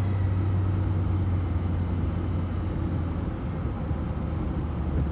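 Steady engine drone and road noise of a van driving along.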